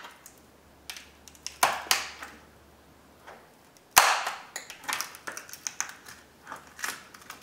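Small screwdrivers clicking and scraping against a Dodge Ram grille emblem and its chrome ring as the emblem is pried out. A couple of taps come early, then one sharp snap about four seconds in, followed by a run of light ticks as the emblem works loose.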